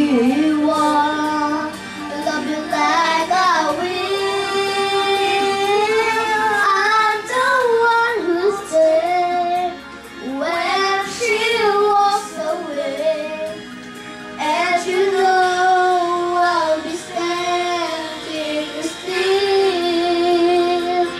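A young girl singing a song into a corded microphone over backing music, holding and gliding between sustained notes with brief breaths between phrases.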